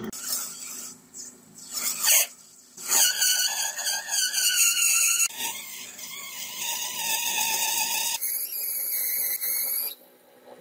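Steel squealing under a metal-cutting tool, high-pitched and ringing. A few short scraping bursts come first. From about three seconds in, a sustained squeal changes pitch in steps twice and stops shortly before the end.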